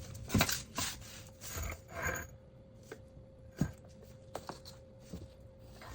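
Irregular knocks and clicks of a car jack being handled and set in place under the side of a car, over a faint steady hum.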